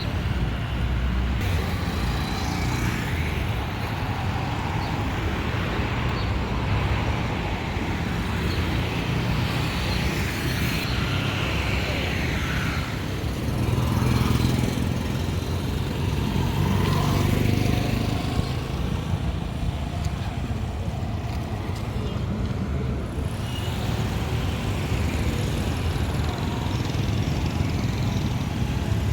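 City street ambience: motor vehicles passing on the road with a steady low rumble, louder as vehicles go by about halfway through.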